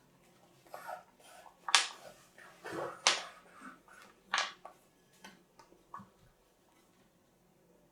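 A handful of sharp taps and knocks, irregular, the loudest about two, three and four and a half seconds in, fading to a few light clicks before it goes quiet.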